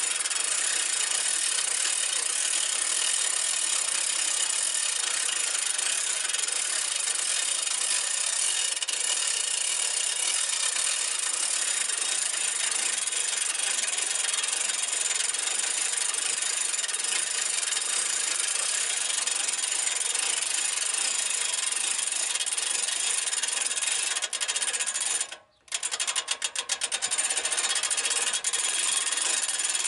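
Hand-cranked log winch on a Wood-Mizer LT15GO portable sawmill, rattling steadily as its cable drags a heavy black locust log up the loading ramps. The sound cuts out briefly about 25 seconds in and stutters before carrying on.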